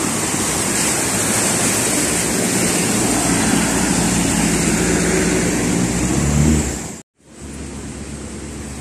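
Vehicles driving through a flooded street, their wheels pushing and splashing through deep water in a steady wash of noise, with a truck engine's hum growing louder through the middle. It cuts off abruptly about seven seconds in, followed by a quieter steady rush of noise.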